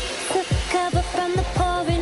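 Electronic dance music: deep kick drums under a held melodic line.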